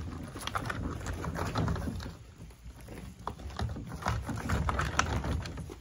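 Gravel crunching under the small wheels of a milk-crate kayak cart as it rolls over a gravel driveway, with the footsteps of the person pulling it: a dense, irregular crackle of small clicks over a low rumble.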